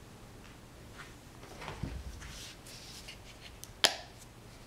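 Small handling noises from hands working over a painting table: a soft rustle, then a single sharp click or tap near the end.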